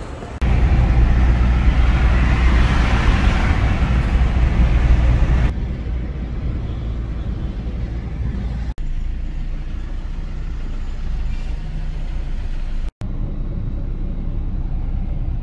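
Steady low rumble of a moving vehicle, heard across several spliced clips: loud for the first five seconds or so, then quieter after a sudden cut.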